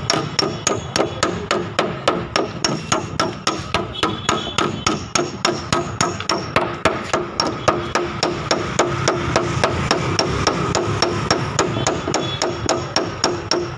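Hammer tapping steadily on a Hyundai i20's steel rear quarter panel, about four quick blows a second, working a dent out without damaging the paint (dry denting).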